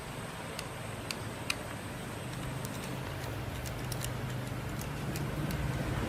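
Scattered light, sharp clicks and ticks, as of small hard parts being handled, over a low mechanical hum that swells toward the end.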